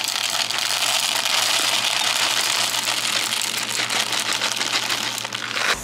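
Hard wax beads poured from a bag into a wax warmer's metal pot: a dense, steady rattle of many small beads hitting the pot and each other.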